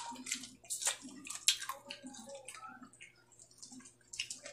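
Close-miked eating: people chewing rice and dried fish eaten by hand, with wet mouth smacks in a quick, irregular series of clicks, busiest in the first couple of seconds.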